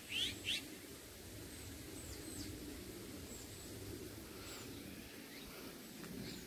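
Bird calls: two loud, short rising chirps about half a second apart right at the start, then fainter high chirps now and then over a steady low outdoor hum.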